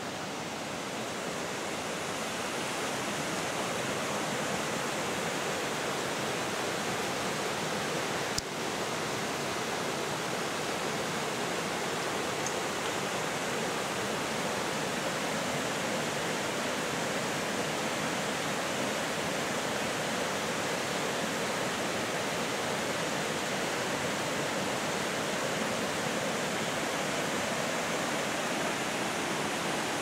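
Steady rush of the Gertelbach's water cascades tumbling down the gorge, growing a little over the first few seconds, with a single brief click about eight seconds in.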